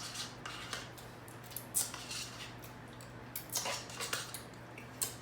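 Eating utensil scraping and clicking against a takeout food container while mac and cheese is eaten: scattered short clicks and scrapes, over a steady low hum.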